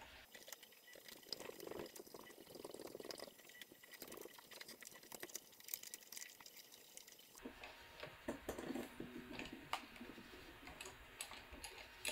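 Faint, scattered clicks and taps of small metal parts being handled: a ring mandrel and tailstock being fitted and adjusted on a mini lathe.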